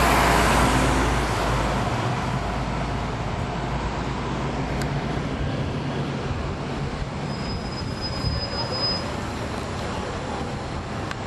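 Caterpillar C13 ACERT diesel engine of a NABI 40-foot transit bus running, heard on board. It is loudest at first and settles lower over the first few seconds, with a brief thin high tone about seven seconds in.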